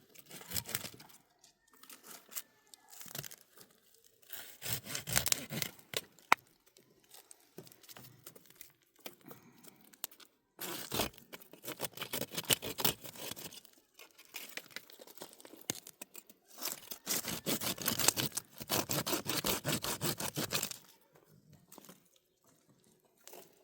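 Rough rasping strokes in bouts of a few seconds each, with short pauses between, from manual work on wood or brush. The longest bout comes about two thirds of the way through.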